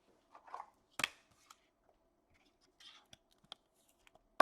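Trading cards being handled at a table: a few sharp clicks and taps with a little rustling, the loudest click about a second in.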